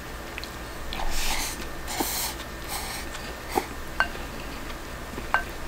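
Eating from a ceramic rice bowl with a spoon: short breathy sniffs as mouthfuls are taken, and the spoon tapping the bowl several times, the later taps with a brief ringing clink.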